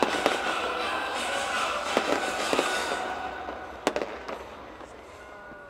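Fireworks going off: a dense hiss and crackle of rising comets and fountains, broken by several sharp bangs. After the last bang, about four seconds in, the crackling dies away.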